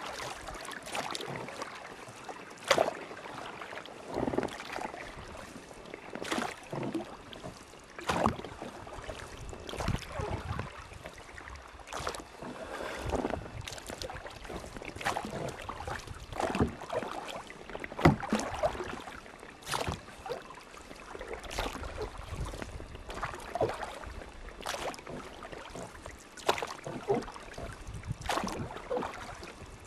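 Rowboat oars stroking through water, a splash and knock about every two seconds, over a steady rush of water.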